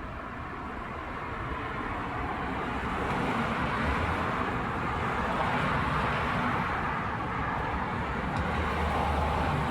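Road traffic: motor vehicles passing on the street, getting louder over the first few seconds, with a low engine hum from about four seconds in.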